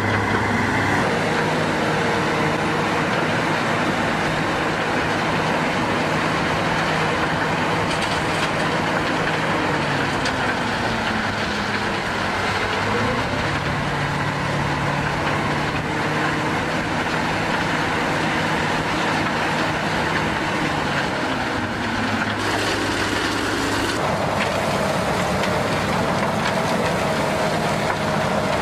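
Diesel engines of heavy construction machinery running, their pitch rising and falling as they rev under load. The sound changes abruptly twice, about 22 and 24 seconds in.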